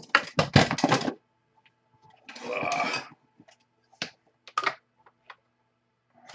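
Trading-card pack wrapper torn open and crinkled: a dense burst of crackles lasting about a second, a softer rustle around two seconds in, then a few scattered clicks as the cards are handled.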